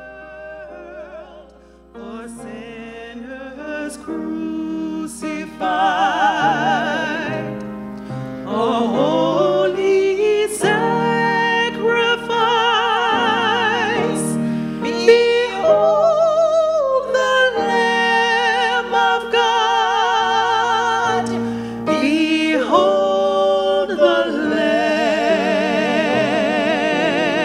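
A woman sings with a strong vibrato to her own grand piano accompaniment. It is softer for the first couple of seconds, then the singing grows louder.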